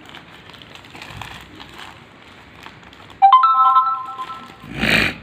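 A short electronic chime of three quickly rising notes that ring on for about a second, like a phone notification tone, about three seconds in. Just before the end there is a brief, loud burst of rustling noise.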